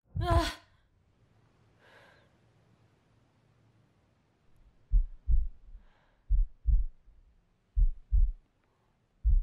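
A heartbeat sound effect: deep double thumps, lub-dub, about every one and a half seconds, starting about five seconds in. It is preceded by a short, loud voiced gasp at the very start and two faint breaths.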